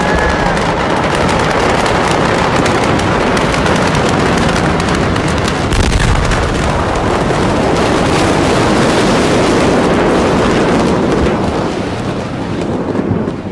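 Blast and fire in the Beirut port: a dense, continuous crackle of rapid pops over a steady rush, with a deep boom about six seconds in. The din eases near the end.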